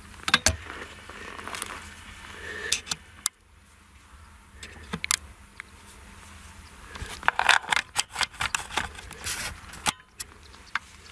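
Sugar beets knocking and clattering irregularly as the ROPA Maus 5 cleaner-loader takes them from the clamp and conveys them into a truck, over the machine's low steady running. The knocks thin out for a moment just after three seconds in and come thickest from about seven to ten seconds in.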